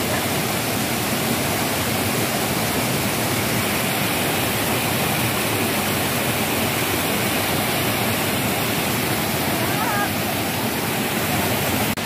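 Waterfall cascading over boulders close by: a steady rush of white water.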